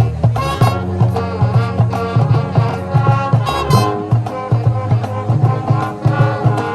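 High school marching band playing: brass over a steady beat of low drums.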